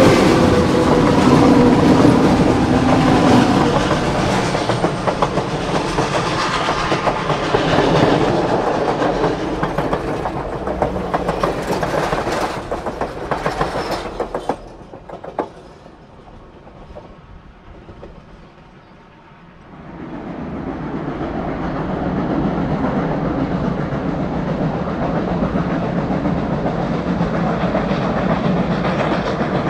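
Passenger cars of a steam excursion train rolling past close by, their wheels clicking over the rail joints. The sound drops away about halfway through, and a steady rumble comes back a few seconds later.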